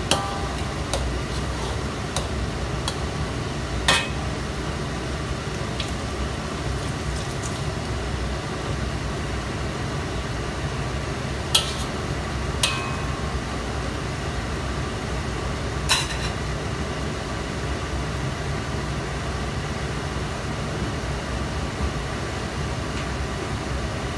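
Metal spatula stirring sambal paste in a steel wok, with a few sharp clinks and scrapes of metal on metal, several early and a couple more later, over a steady low rumble.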